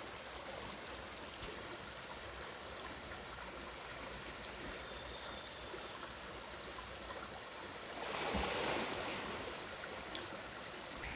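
Shallow river water trickling over stones, a steady rushing that swells louder for a second or so about eight seconds in.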